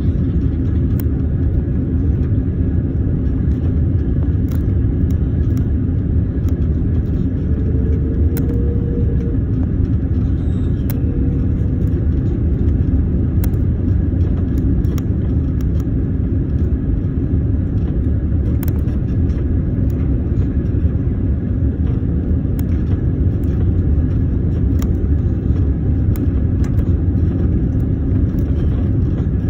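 Steady low rumble of an airliner's cabin, engine noise and rushing air heard from a window seat, as the plane descends on approach to land.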